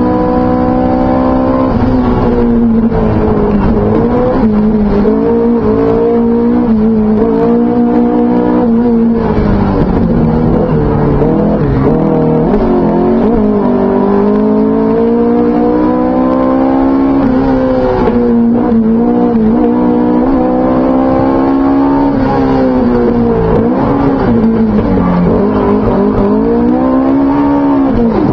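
Alfasud Sprint Group 2 race car's flat-four boxer engine at full racing load, heard from inside the cockpit, its pitch climbing and falling over and over as it works up and down the rev range through the bends of a hillclimb.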